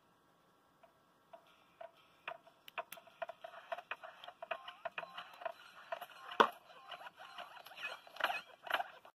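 Fingers handling small parts: a stream of light clicks, taps and scratches as small heatsinks are pressed onto a Raspberry Pi 4 board in its plastic case. The clicks grow busier after about two seconds, with one sharper click about six and a half seconds in.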